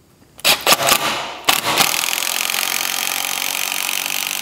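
Cordless power driver driving a 5/16-inch lag bolt into a 4x4 timber brace: a few short trigger bursts to start the bolt, then a steady run of about two and a half seconds as the bolt is driven home.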